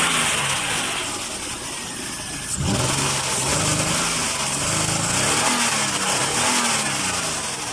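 2002 Nissan Maxima's V6 engine running, with a sudden surge about two and a half seconds in and then its pitch rising and falling several times as it is revved; the crank-but-no-start fault is cured.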